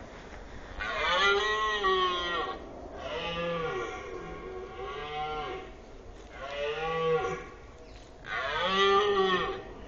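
A red deer stag roaring in the rut. It gives a series of about five long, deep roars with short pauses between them.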